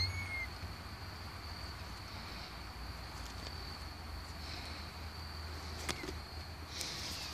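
Kittens scrambling at a slice of pizza in a paper towel on a wooden deck. A short rising kitten mew at the start, a sharp tap about six seconds in, and paper towel rustling near the end, over a steady high-pitched whine and a low rumble.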